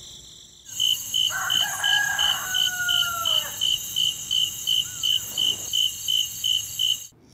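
Crickets chirping steadily, about three high chirps a second, with a rooster crowing once about a second in. The sound starts suddenly just after the beginning and stops abruptly near the end.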